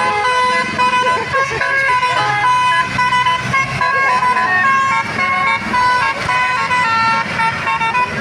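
Basuri telolet bus horn playing a rapid melody of short held notes, each note a new pitch a fraction of a second long.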